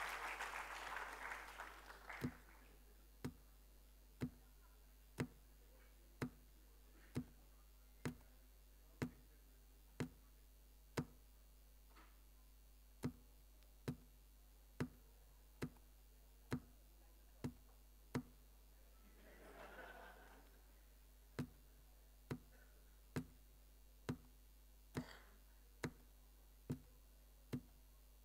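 Applause dies away over the first two seconds. Then sharp single clicks follow about once a second, slowly speeding up, with a brief faint burst of noise about two-thirds of the way through.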